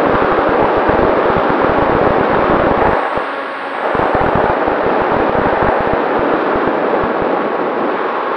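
Airflow rushing and buffeting over the onboard Runcam 2 action camera's microphone on a Volantex Ranger RC plane in flight. The low buffeting eases briefly about three seconds in, then returns.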